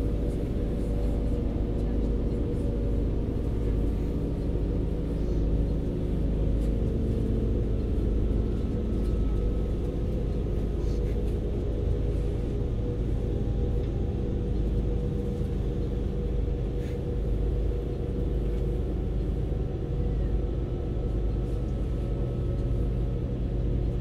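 Class 196 Civity diesel multiple unit heard from inside the passenger saloon: a steady low drone from its underfloor diesel engine with rail rumble, and a few faint clicks.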